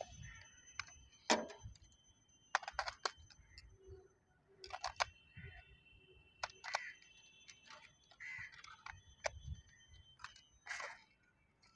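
Plastic drone remote controller being handled: scattered clicks and knocks as its battery compartment is worked and batteries are fitted.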